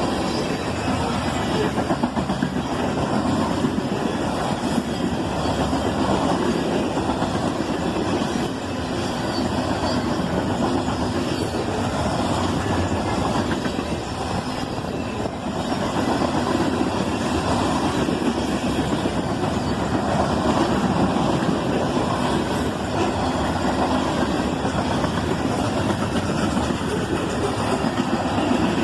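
Freight cars of a CSX manifest train rolling past, a steady rumble and clatter of steel wheels on the rails.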